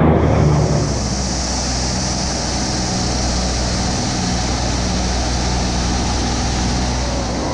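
Lockheed P-38 Lightning's twin engines running steadily, heard from inside the cockpit as a low drone under a constant rush of air.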